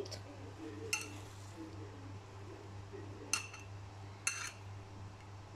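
Metal fork clinking against a ceramic plate four times, sharp ringing taps, while a floured chicken piece is turned in beaten egg. A steady low hum sits underneath.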